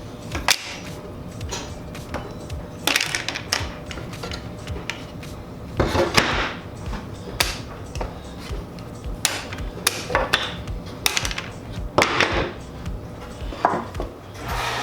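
Metal F-style clamps knocking and clacking against a wooden clamp rack as they are hung in its slots: a string of irregular sharp clacks, some with a short scraping rattle.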